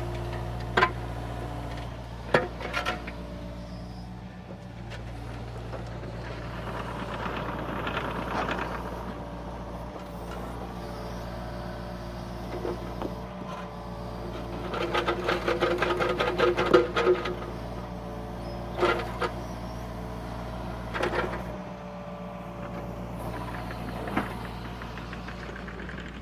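Excavator's diesel engine running steadily, with sharp clanks and knocks as the machine handles granite boulders. About two thirds of the way through comes a louder stretch of fast metallic rattling lasting a couple of seconds.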